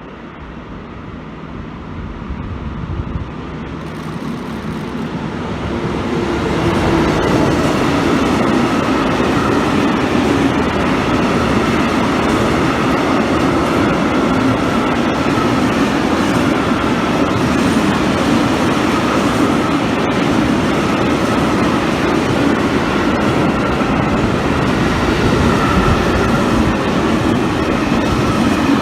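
A train running past on the line, wheels on the rails: the sound builds over the first six or seven seconds, then stays loud and steady as the train goes by.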